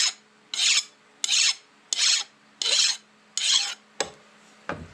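Hand file stroked back and forth along the edges of a vise-jaw blank, deburring them. About six even strokes come one every two-thirds of a second, then the filing stops and two short knocks follow near the end.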